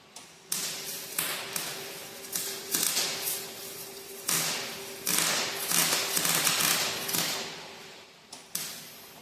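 An irregular series of sharp knocks, each trailing off in a hissing scrape. They come about a dozen times and are loudest around five to seven seconds in, over a faint steady hum.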